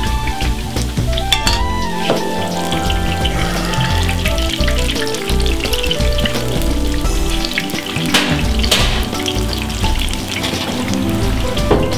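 Battered tempura pieces deep-frying in a wok of hot oil, sizzling steadily, with background music playing over it.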